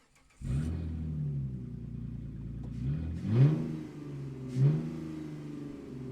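Motorcycle engine coming in abruptly about half a second in and running steadily, then revved twice past the middle, each throttle blip rising sharply in pitch and briefly louder.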